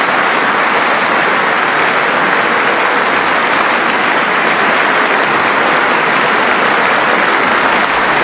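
Large audience applauding in a steady, dense wash of clapping.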